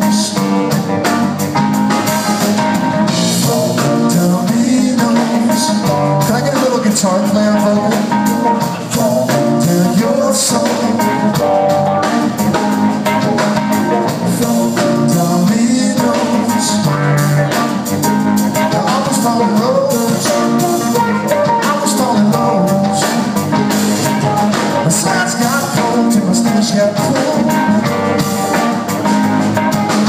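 A rock band playing a song live: guitar, bass guitar, keyboards and drum kit, with a steady beat.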